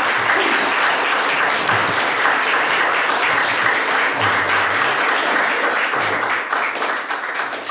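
Audience applauding: a steady clatter of many hands clapping at once, tapering off near the end.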